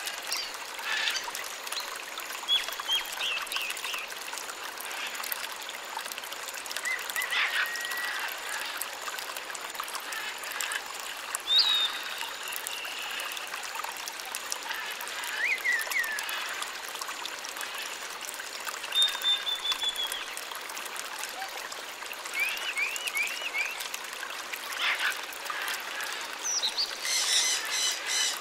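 Birds calling with short chirps and whistles over a steady trickle of water, with a harsher, rapidly repeated squawking call near the end.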